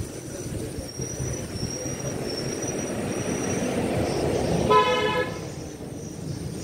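A steady low rumble, with one short horn toot about five seconds in, lasting about half a second.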